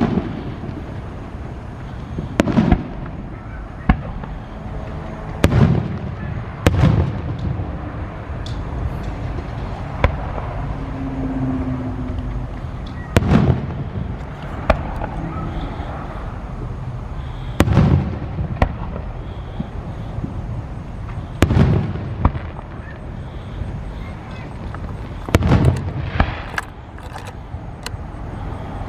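Aerial fireworks shells bursting overhead: a heavy boom every few seconds with a rumbling tail, and sharper single cracks in between.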